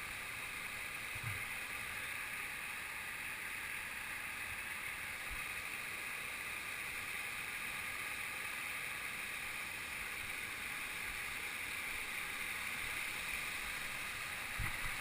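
Steady rush of a waterfall: an even hiss of falling water that holds the same level throughout.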